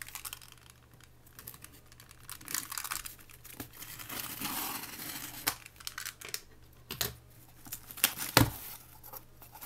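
A blade being drawn through packing tape on a cardboard shipping box: scraping and crinkling of the tape, with scattered sharper knocks of hands and tool against the cardboard in the second half.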